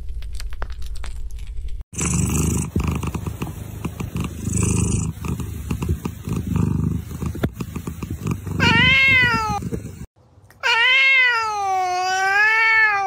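A cat purring in a low pulsing rhythm, then a short wavering meow and, after a brief pause, a long meow that wavers up and down in pitch near the end.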